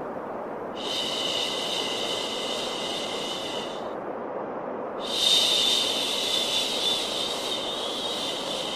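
Steady white noise with a long 'shhh' shushing sound laid over it twice, each shush lasting three to four seconds, used to calm a crying baby.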